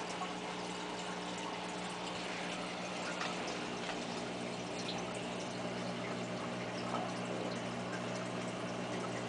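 Saltwater reef aquarium equipment running: a steady electric hum from the pump under a constant wash of circulating, trickling water.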